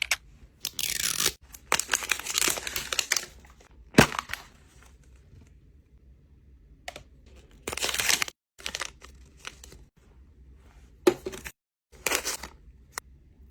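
Plastic packaging being torn open and crinkled in several separate bursts, with a sharp click about four seconds in.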